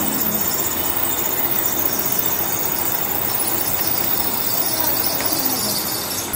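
Steady hiss of compressed air escaping from a paint spray gun and its air hose.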